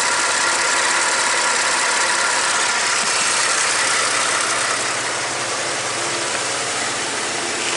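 Ford 2.7-litre EcoBoost twin-turbo V6 idling, a steady hum and hiss under the hood that drops a little in level about five seconds in.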